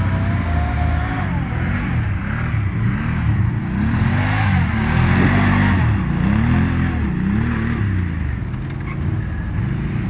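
Quad bike (ATV) engine being revved up and down over and over, its pitch rising and falling about once a second as it is throttled on and off while riding.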